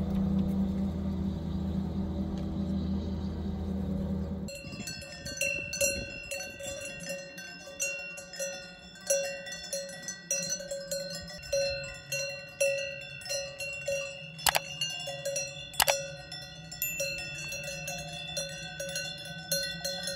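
Cowbells on grazing cows clanking irregularly, several bells of different pitches ringing together, with a couple of sharper strikes. For the first four seconds or so, before the bells start, there is a steady low hum.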